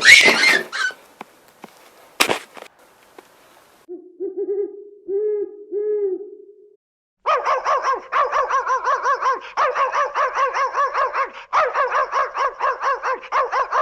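Owl calls: a low hoot with three short rises about four seconds in, then a louder, fast, evenly pulsed trill that starts about seven seconds in and breaks off briefly twice.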